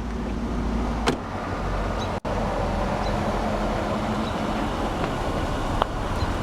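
2008 Pontiac G6 GT's 3.5-litre V6 idling steadily, with a sharp knock about a second in, a brief dropout near two seconds and a faint click near the end.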